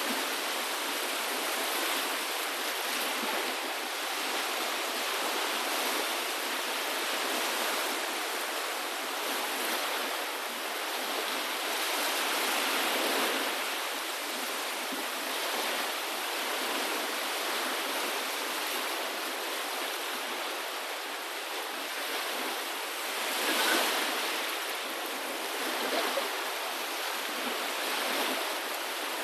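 Steady rush of water, an even noise without tones or clicks, swelling gently a few times, most strongly about three-quarters of the way through.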